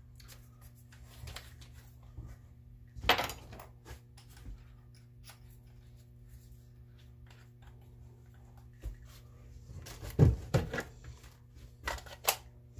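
Scattered knocks and handling noises of hand tools on a plywood panel: one sharp knock about three seconds in, a cluster of knocks around ten seconds, and two more near the end, over a steady low hum.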